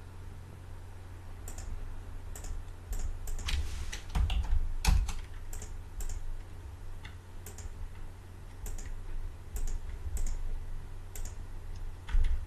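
Scattered, irregular clicks of a computer mouse and keyboard keys, with a few louder ones about four to five seconds in, over a steady low hum.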